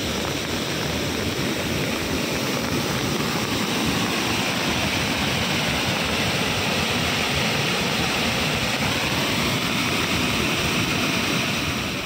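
Waterfall in heavy monsoon flow, muddy water pouring over wide rock ledges: a steady rushing roar of falling water.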